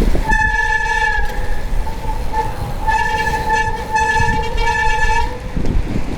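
A vehicle horn blowing: one blast of about a second, then a string of blasts with short breaks between them.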